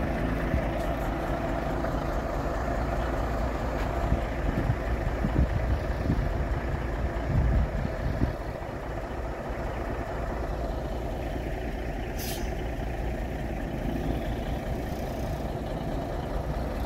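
Cummins 400 diesel of a 1978 Autocar dump truck idling steadily while its air system builds pressure to release the brakes. A short high hiss comes about twelve seconds in.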